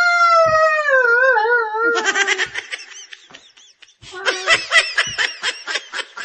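A person's long, high wail that falls in pitch and wavers, then bursts of laughter from about two seconds in, with a short pause and the laughing picking up again near the middle.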